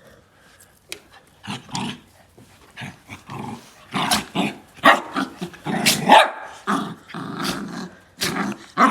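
A dog growling and barking in a run of short, rough bursts that get louder from about four seconds in: a strange, monster-like noise rather than an ordinary bark.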